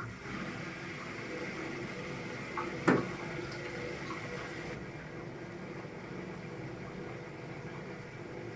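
Indesit washing machine taking in water: a steady rush of water filling the machine as a wash programme begins. A single sharp knock about three seconds in.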